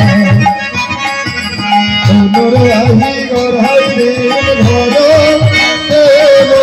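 Devotional kirtan music: a khol barrel drum beats a steady rhythm of repeated strokes under a wavering melody line.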